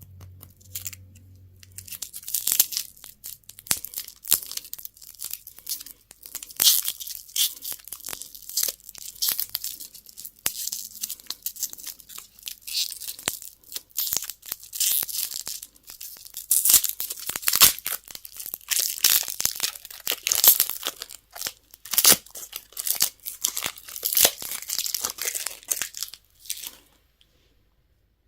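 Candy packaging being torn open and crinkled by hand: a dense run of crackling, tearing sounds that stops shortly before the end.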